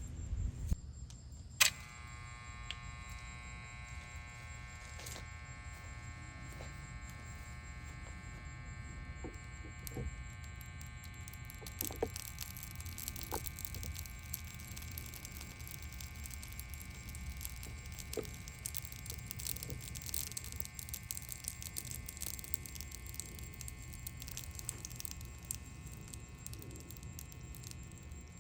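Small electric motor from a Dirt Devil Vibe stick vacuum switched on with a click about two seconds in, then running with a steady high whine and scattered crackles. It is being overdriven on purpose to burn it out.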